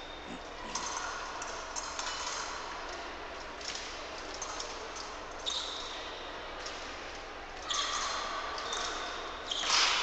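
Footsteps and shoe squeaks of fencers walking on the piste in a large sports hall, with scattered light knocks and a louder burst of squeaks and clatter near the end.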